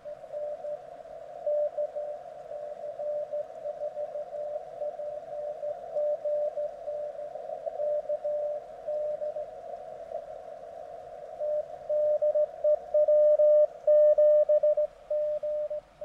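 Morse code (CW) signals on the 40 m band heard through a Recent RS-978 transceiver's speaker: a single beeping tone keyed in dots and dashes over band hiss. About twelve seconds in a stronger station starts keying much louder, a QSO between other operators suddenly appearing on the frequency.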